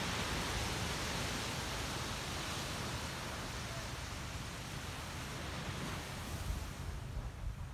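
Small waves breaking and washing onto a sandy beach, a steady hiss of surf, with wind gusting on the microphone.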